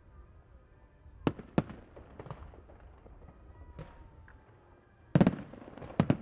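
Aerial firework shells bursting with sharp bangs. Scattered reports come in the first few seconds, then a loud cluster of bangs about five seconds in.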